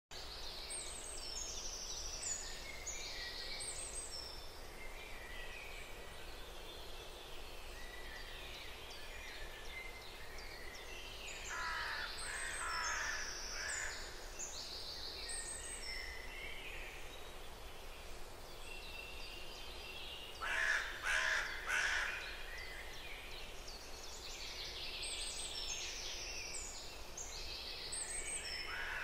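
Bird ambience: many small birds chirping and trilling high throughout, with louder, harsher, lower calls about twelve seconds in and three in quick succession around twenty-one seconds in.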